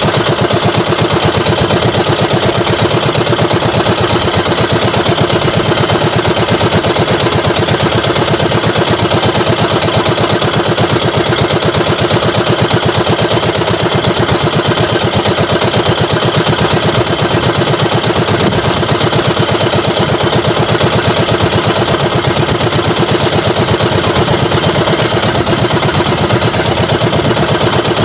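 Engine of a small outrigger fishing boat running at a steady speed, with an even, rapid beat and no change in pace.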